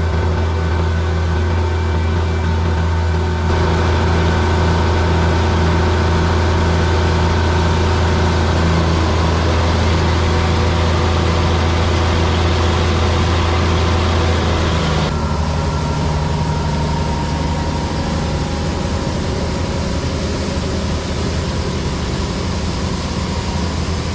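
Farm tractor engine running steadily with a deep hum. About three and a half seconds in it grows louder and brighter, and about fifteen seconds in the deep hum drops away to a rougher, lower note.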